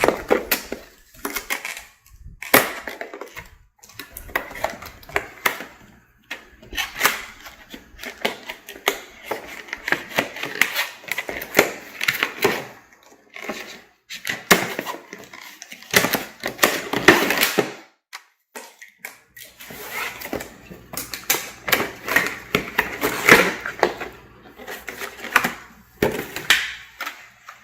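Packaging of a showerhead being opened and handled: irregular clicks, knocks and rustling from cardboard and plastic, in a small room.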